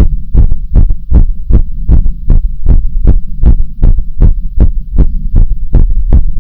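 Loud, close-recorded human heartbeat: an even run of thumps, about two and a half a second, over a constant low hum.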